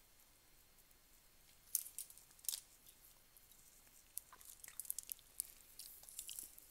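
Close-up hand-eating sounds: sharp crackly clicks and smacks of chewing, with a couple of louder clicks about two seconds in and a denser run of crackles from about four seconds in as a handful of rice is scooped off the foil-lined table and eaten.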